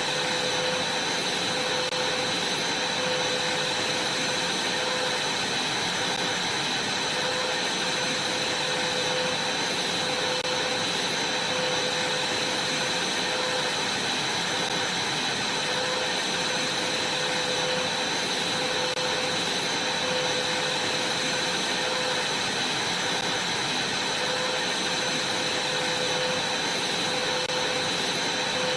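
Vacuum cleaner running steadily: a constant rush of air with a steady high whine.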